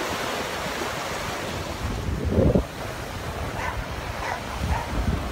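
Sea surf breaking and washing up a sandy beach, with wind buffeting the microphone. A brief, louder buffet comes a little over two seconds in, and then the surf is quieter.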